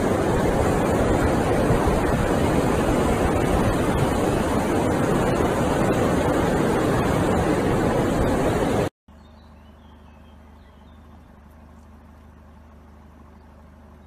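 Loud, steady wind rushing on the microphone over ocean surf on a beach. About nine seconds in it cuts off abruptly to a much quieter outdoor background with a low hum and a few faint chirps.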